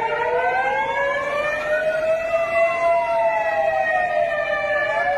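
Several sirens wailing at once, their pitches slowly rising and falling and crossing over each other.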